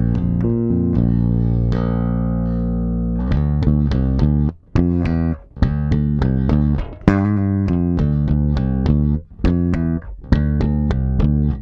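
Spector NS Pulse five-string electric bass played fingerstyle through its neck pickup alone. One long low note is held for about three seconds, then a run of plucked notes follows with short breaks between phrases.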